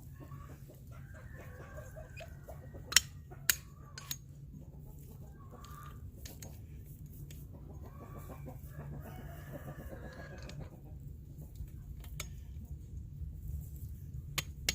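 A rooster crowing several times in the background, each call lasting a second or two, with clucking. A few sharp knocks or clicks stand out, the loudest a pair about three seconds in and two more near the end.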